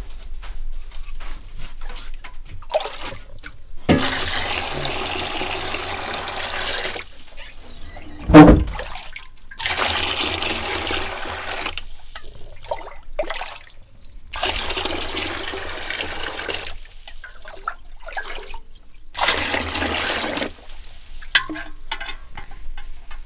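Water running from the tap of a metal water tank into a plastic basin, in four spells of a few seconds each as the tap is opened and shut. There is a single loud thud about eight seconds in.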